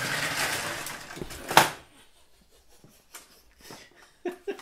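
Metal Lastra Z0 model locomotive and four-axle coach running on bakelite track with brass rails: a rattling running noise for almost two seconds that ends in one sharp loud clack. Then a few soft knocks as the coach is handled.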